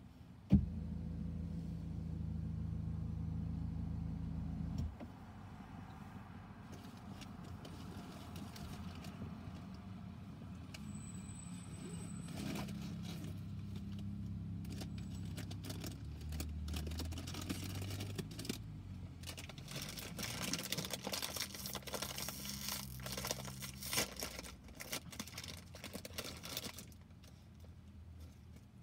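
Truck engine running out of sight: it comes in suddenly about half a second in with a steady low hum for about four seconds, then carries on fainter, rising and falling in pitch. Near the end a run of sharp crackling clicks.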